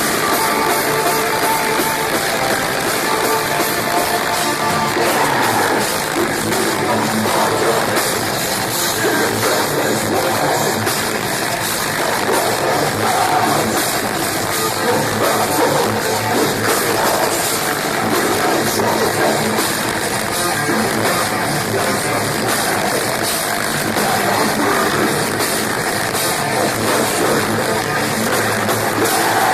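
Metalcore band playing live at full volume: distorted electric guitars and pounding drums, with vocals over them.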